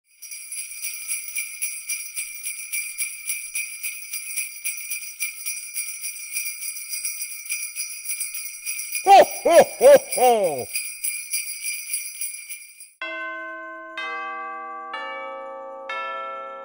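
Sleigh bells shaken in a steady rhythm, with a 'Ho, ho, ho!' Santa laugh about nine seconds in. The bells stop about thirteen seconds in and a slow melody of single ringing, bell-like notes begins.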